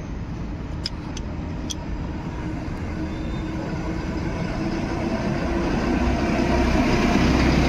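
A motor vehicle's engine running close by and growing steadily louder, with two sharp clicks about one and two seconds in.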